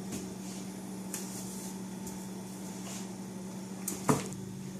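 Steady low electrical hum with faint handling clicks, and one sharp knock about four seconds in.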